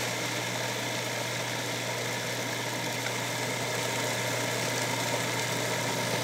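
Food processor running steadily, its motor humming as the blade grinds a nut pie-crust mixture.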